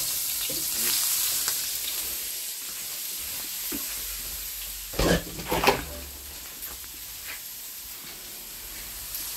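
Chopped garlic sizzling in hot mustard oil in a frying pan, a steady hiss as it fries and is stirred. Two sharp knocks against the pan come about five seconds in.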